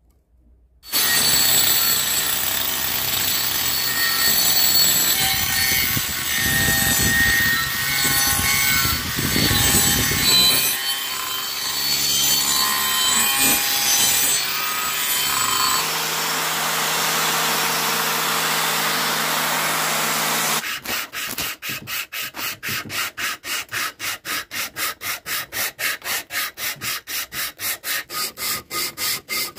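An angle grinder with an abrasive disc grinding into a wooden axe handle blank, its motor note shifting as it bites. About 21 seconds in, this gives way to sandpaper rubbed back and forth by hand along the handle in quick, even strokes, about three a second.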